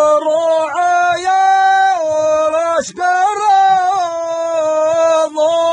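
Unaccompanied solo voice singing hejeni, the Gulf Bedouin sung poetry, holding long, drawn-out notes with slight pitch slides between them and a brief breath break about three seconds in.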